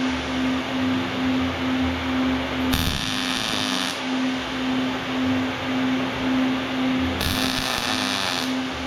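An electric power tool running steadily, with a low pulsing hum under it.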